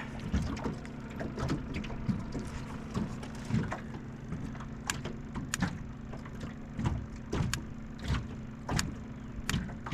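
Fishing reel being cranked to bring in a hooked channel catfish, with irregular sharp clicks and knocks from the reel and rod handling over a steady low hum.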